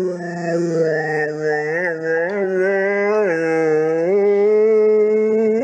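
Boxer dog howling: one long unbroken howl, its pitch shifting up and down in small steps.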